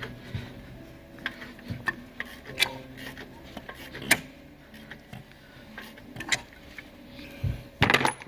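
Mercedes-Benz M276 V6 engine running with irregular ticking and rattling over a steady hum, the rattle attributed to the timing gear. A loud clatter of knocks comes near the end.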